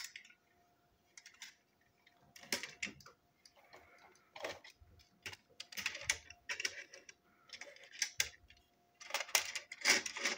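Irregular clicks, taps and short scrapes of a small toy brake van being handled and its parts fitted back together on a tabletop, coming in bursts.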